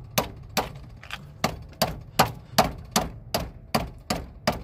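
A steel-headed hammer taps a new battery terminal connector down onto the battery post: about a dozen quick, even taps, roughly three a second. The taps seat the clamp lower on the post.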